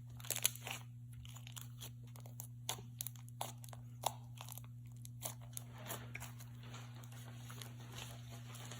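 Foam-bead slime being stretched and squished by hand, giving off many small crunching crackles and pops as the beads shift and burst. The crackles come thick and fast for about five seconds, then turn sparser.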